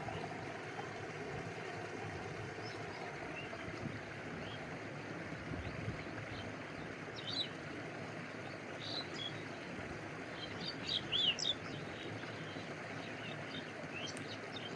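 Steady rushing and lapping of a stream, with small birds chirping over it, the chirps coming in short clusters about seven seconds in and again near the end.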